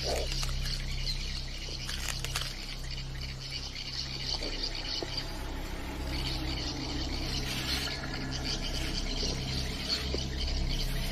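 Steady high chorus of insects, with a low steady hum underneath and a few faint clicks about two seconds in.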